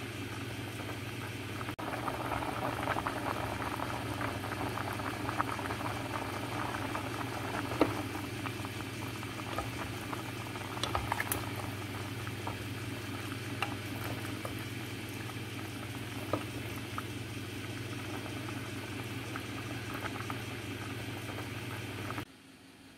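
A pot of macaroni in water at a rolling boil, bubbling densely and steadily over a steady low hum, with a few light ticks. The sound cuts off suddenly about a second before the end.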